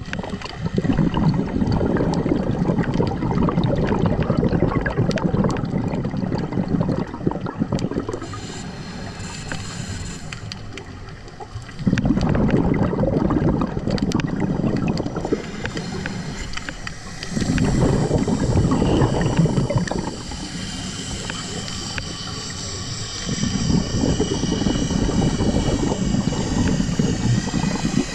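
Scuba diver breathing on a regulator underwater: exhaled air bubbles out of the exhaust in several long, gurgling bursts a few seconds each, with quieter pauses for inhalation between them.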